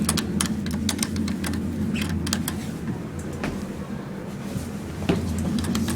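Schindler elevator car travelling between floors: a steady low hum, with scattered sharp clicks over it.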